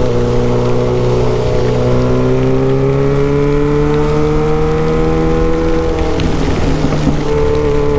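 Straight-piped Yamaha XJ6 inline-four motorcycle engine pulling under way, its note rising slowly. About six seconds in it breaks up for about a second, then carries on steady. A steady hiss of wind and rain sits underneath.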